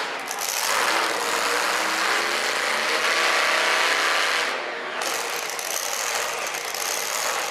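Supercharged engine of a two-wheel-drive pulling truck running at low revs as it manoeuvres, its pitch wavering with small throttle changes, over the steady noise of a large hall.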